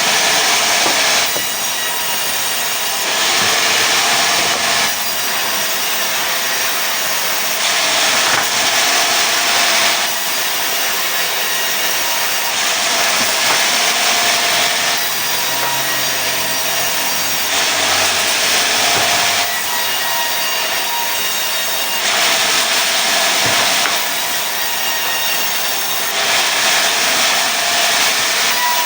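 Sawmill saw cutting pine into boards: a continuous, loud sawing noise that swells louder for a couple of seconds every four to five seconds.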